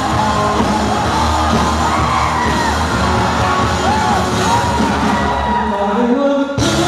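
Live rock band playing loud and amplified through a stage PA, heard from within the audience, with people whooping and yelling over the music. Near the end the sound thins briefly, then changes abruptly.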